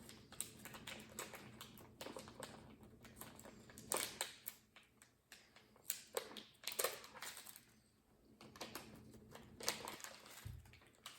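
A plastic blind-pack bag crinkling and rustling as it is opened, with scattered faint clicks and taps as the toy figure inside is handled.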